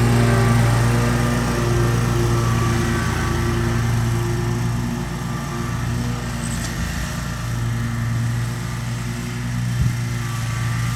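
Gravely zero-turn riding mower running steadily while mowing grass, a low engine drone that gets a little quieter about halfway through as the mower drives farther off.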